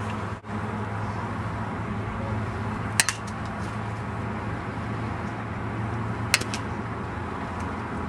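A baseball bat hitting a ball twice, about three seconds apart, each a single sharp crack, over a steady low hum.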